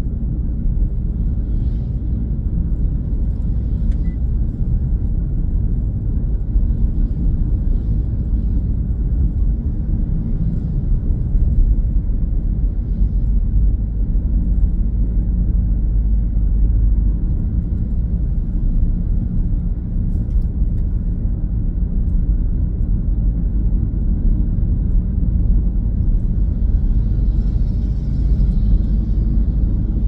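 Steady low rumble of road and engine noise heard inside the cabin of a Mitsubishi Grandis while it is being driven.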